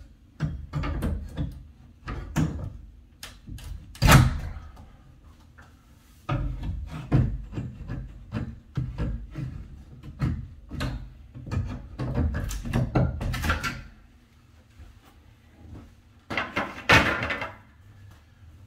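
Wooden closet door trim being pried and knocked off its frame with a hand tool, held by rusty nails: a run of knocks, creaks and thuds, with two loud knocks about four seconds in and near the end.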